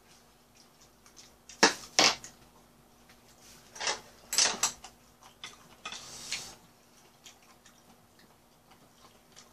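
Chopsticks and a spoon clicking against dishes and bowls while eating: a pair of sharp clicks about two seconds in and a cluster around four to four and a half seconds, with a brief hiss just after six seconds and a faint steady hum underneath.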